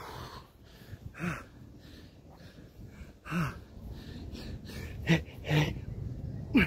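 A man breathing hard and letting out short, voiced grunts on the exhale from exertion. The grunts come about every two seconds, closer together near the end.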